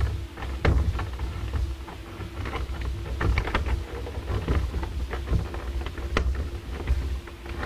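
Irregular small clicks and knocks of a control panel cable and its plastic connector being handled and plugged into the hot tub's control box, over a steady low rumble.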